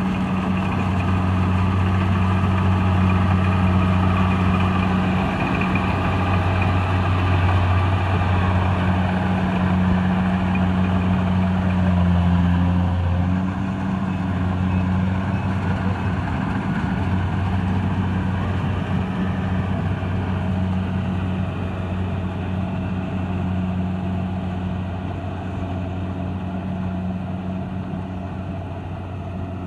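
Kubota DC-70 Plus combine harvester's diesel engine running steadily with a deep, even hum. The note eases briefly about halfway through, and the engine grows a little quieter toward the end.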